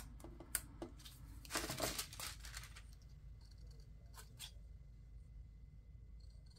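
Small craft scissors trimming a scrap of paper: a few short, sharp snips, with a longer rustle of the paper about a second and a half in.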